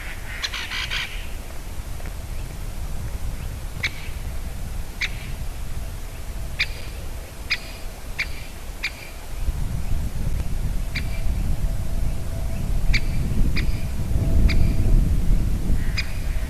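Great spotted woodpecker giving short, sharp single 'kik' calls at irregular intervals about a second or two apart, with a quick flurry of calls near the start. A low rumble comes up about halfway through.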